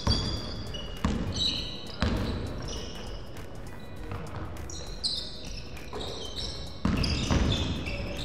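A basketball being dribbled on a wooden gym floor, with sharp bounces about a second apart at first and another near the end. Sneakers squeak on the floor throughout.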